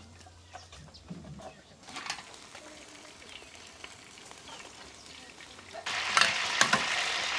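Food frying in a hot pan: light stirring and scattered clinks over a soft sizzle, then a loud crackling sizzle that starts suddenly about six seconds in.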